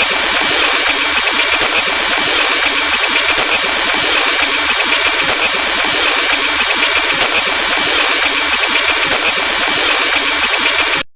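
A motor running steadily and loudly, cutting off abruptly near the end.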